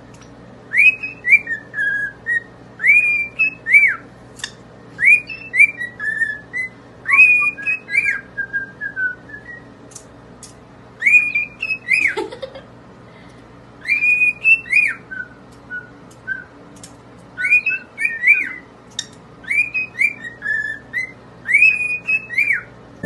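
A parrot whistling a short phrase of high rising-and-falling notes over and over, about one phrase every couple of seconds, with a few short breaks. About twelve seconds in, one whistle sweeps up from low to high.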